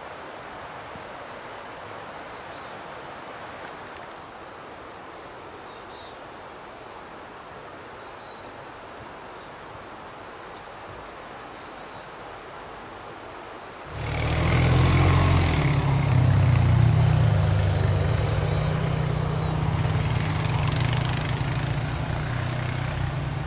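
Small birds chirping in short, downward-sliding calls over a steady outdoor hiss. About two-thirds of the way through, a loud low rumble comes in suddenly, covering the birds, and eases off near the end.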